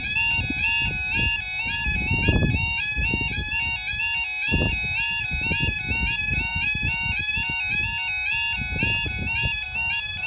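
Level crossing's new-type electronic warning alarm sounding continuously, a steady two-tone warble stepping evenly back and forth between two pitches: the crossing is closed for an approaching train. An irregular low rumble runs underneath.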